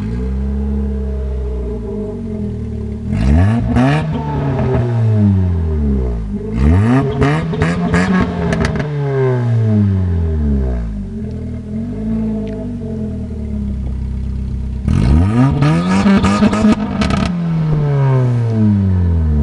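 Chevrolet Celta's four-cylinder engine, just started, idling and revved three times, each rev climbing and falling back to idle, with a short blip in between. Sharp crackles come through near the top of the bigger revs.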